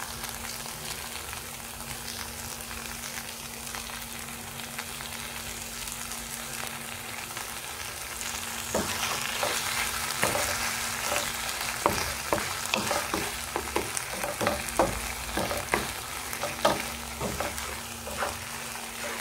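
Chicken and tomato masala sizzling in a nonstick frying pan. From about nine seconds in, a wooden spatula stirs it, with repeated short scrapes and knocks against the pan.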